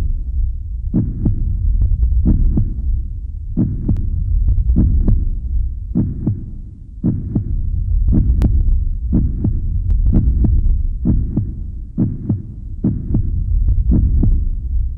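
Heartbeat sound effect on the soundtrack: a double low thump, lub-dub, repeating about once a second over a steady deep rumble.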